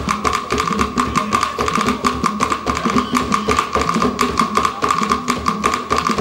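Live West African percussion music: hand drums played in a fast, even rhythm.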